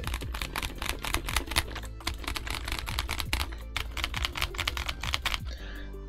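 Fast typing on a KeebMonkey WK870 aluminium TKL keyboard, stock with no mods, fitted with Gazzew U4Tx tactile switches and Cherry-profile PBT keycaps: a quick, steady stream of key clacks that stops shortly before the end. Background music runs underneath.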